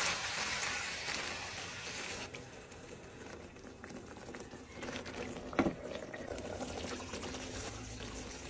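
Fish and eggplant sizzling in a frying pan. The sizzle drops away after about two seconds, and then coconut milk simmers with a softer bubbling sound. A single sharp clink comes a little past halfway.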